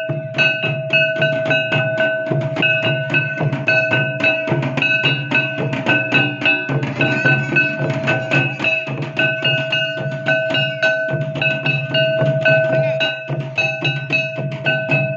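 Santali folk drums, slung barrel drums and kettle drums beaten by hand and with sticks, playing a fast, even dance rhythm together. Over the drumming runs a repeating high melody of held notes.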